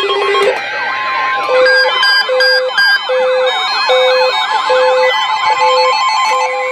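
Several weather alert radio receivers alarming together for a tornado warning. Warbling siren-like alert tones overlap with beeps pulsing about every 0.8 s, and from about a second in a steady single tone near 1 kHz sounds: the NOAA Weather Radio 1050 Hz warning alarm tone.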